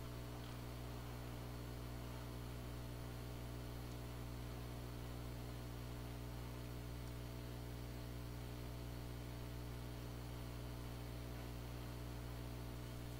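Steady low electrical hum with a faint hiss, unchanging throughout.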